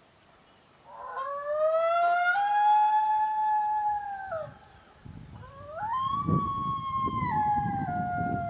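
Two long coyote howls. The first starts about a second in, rises and holds its pitch, then drops off. The second starts higher, about five seconds in, and steps down in pitch as it goes on, with a low rumble underneath.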